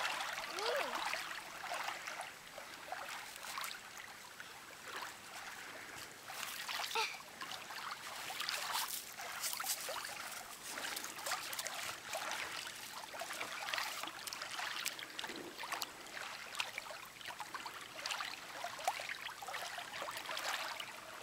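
Shallow lake water trickling and splashing softly at a pebble shore as a toddler's hands and feet stir it, with many small scattered splashes and clicks.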